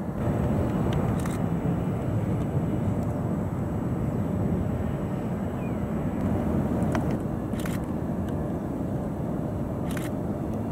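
Jet airliner engines running at an airport, heard as a steady low rumble, with a few short clicks over it.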